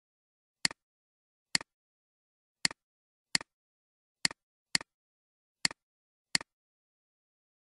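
Computer mouse button clicks, eight in all at an uneven pace, each a sharp click with a softer tick right after it, in dead silence between.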